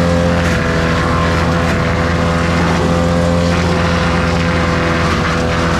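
Wood chipper's small petrol engine running steadily at high speed.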